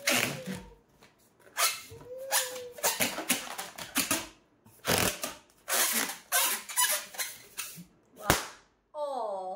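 Long latex twisting balloon rubbed and squeezed between the hands, giving a run of repeated squeaks. About eight seconds in there is one sharp, loud bang as the balloon bursts.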